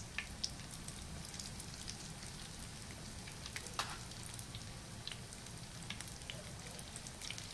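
Breaded croquettes deep-frying in hot oil in a cast-iron pan: a steady sizzle with scattered crackling pops.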